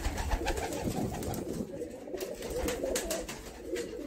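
Domestic white pigeons cooing in their loft, a steady low burble, with scattered light clicks and rustles throughout.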